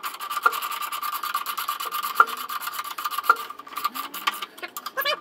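Socket ratchet clicking rapidly and evenly as a bolt is run in, with a few harder clicks.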